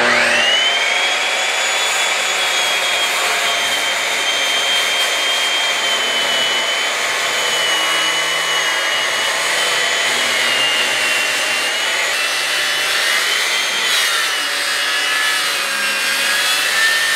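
Left-handed circular saw spinning up, then ripping lengthwise along a wooden post, its motor whine holding steady with slight dips in pitch as the blade works through the wood.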